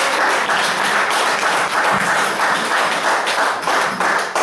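Audience applauding, a dense steady clatter of many hands clapping that begins to thin out near the end.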